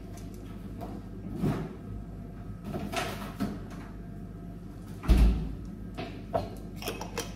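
A refrigerator door opened and shut, closing with a dull thud about five seconds in, among a few lighter knocks and clicks.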